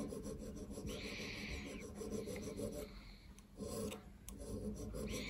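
Hand needle file stroking back and forth over the crossings of a brass clock wheel held in a vice, filing the central boss down to a steel filing button. The rasping pauses briefly about three seconds in.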